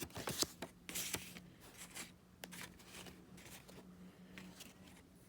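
Pen or marker scratching in short strokes on paper, drawing a wiring diagram, with a faint steady low hum underneath.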